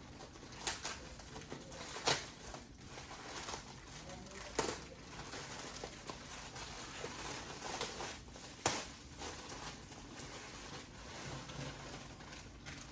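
A shipping package being handled and opened by hand: rustling with a few sharp rips or snaps, the loudest about two, four and a half, and eight and a half seconds in.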